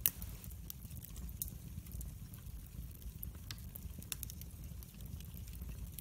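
Split wood logs burning in a fireplace, crackling with frequent sharp snaps and pops over a steady low rumble. The loudest pop comes right at the start, with others about one and a half and four seconds in.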